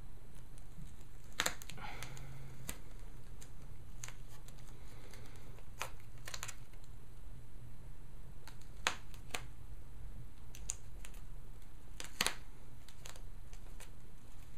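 About ten light, sharp clicks scattered irregularly, with soft handling sounds, over a low steady hum.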